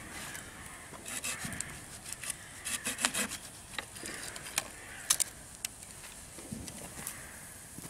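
Small campfire of dry kindling crackling, with irregular sharp pops and snaps.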